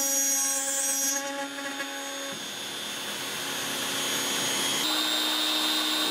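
Shaper Origin handheld CNC router's spindle running at speed with a 1/8-inch carbide end mill cutting a hole in 1/16-inch aluminum plate: a steady motor whine over cutting noise. The sound shifts about two seconds in and again near five seconds.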